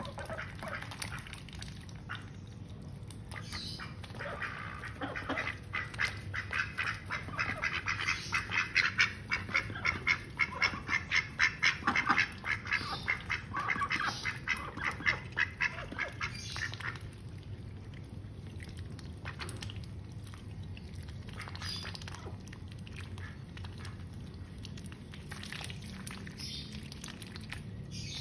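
Domestic ducks quacking: a long run of quick repeated quacks, about two a second, that builds up, is loudest in the middle and stops about seventeen seconds in, followed by a few scattered quacks.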